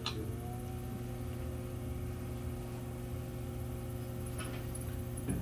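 Brent EX electric potter's wheel running, its motor giving a steady hum of several tones that rise slightly in pitch just after a brief click at the start.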